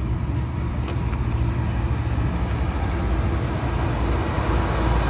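Motor vehicle engine running nearby with a steady low drone, heard in slow road traffic.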